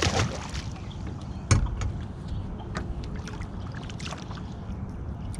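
Knocks and handling noises in a small fishing boat over a steady low rumble. There is a short scuffle at the start and a sharp knock against the boat about a second and a half in.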